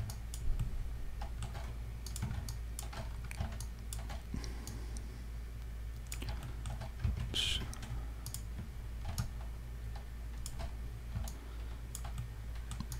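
Irregular clicks from a computer keyboard and mouse as a 3D model is edited, over a steady low hum.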